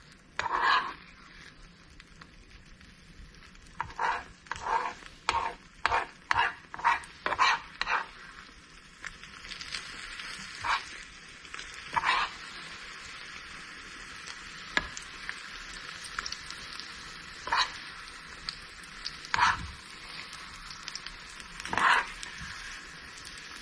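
Eggs frying in a pan: a steady sizzle sets in about nine seconds in, with occasional sharp knocks and scrapes of a utensil against the pan. Before the sizzle, a quick run of about eight short sharp sounds.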